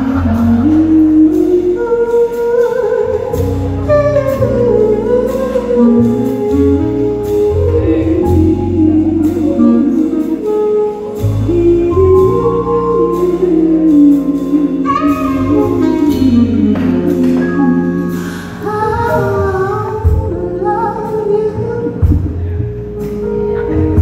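Live music: a woman singing a wavering, gliding melody over band accompaniment, with low bass notes sustained beneath.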